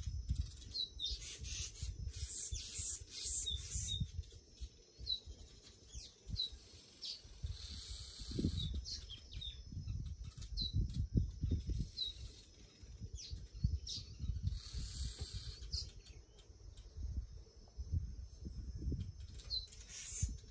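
Birds chirping in the background: short, high, falling chirps every second or two, over a low, uneven rumble.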